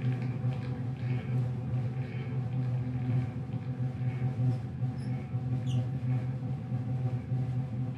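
Live improvised space rock drone: a sustained low bass drone with steady held tones above it and faint, pulsing high effect sounds. A brief high squeal comes just before six seconds in.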